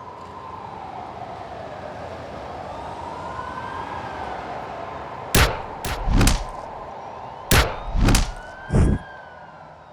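An emergency siren wails, slowly rising and falling, over a bed of city noise. About five seconds in, a run of loud bangs cuts across it: three in quick succession, then three more a moment later.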